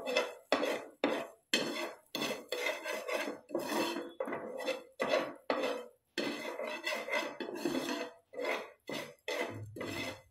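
A slotted spatula scraping and tapping against a non-stick pan in repeated strokes, about two a second, as sugar is stirred into melted butter over low heat.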